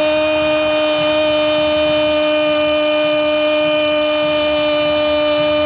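A football commentator's drawn-out goal cry: one long, loud held note at a steady pitch through the whole stretch.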